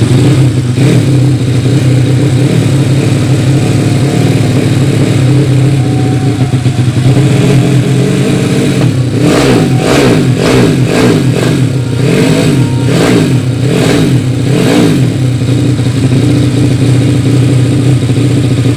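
Yamaha Vega ZR engine, bored to 200cc with a swapped Mio cylinder, running steadily. About halfway through the throttle is blipped in a rapid series of short revs for several seconds before it settles back to a steady idle.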